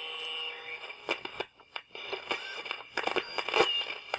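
Logo intro sound effect: a chord of steady electronic tones fading out in the first second, then irregular crackles and clicks with a few short rising blips.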